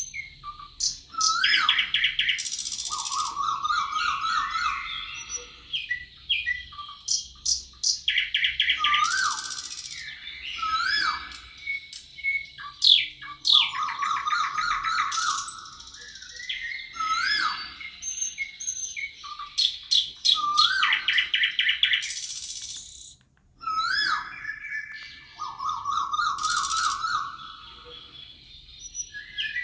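Several songbirds singing and calling together: short rising whistled notes, quick trills and chirps, with a similar sequence of phrases recurring every six seconds or so. There is a brief gap about two-thirds of the way through.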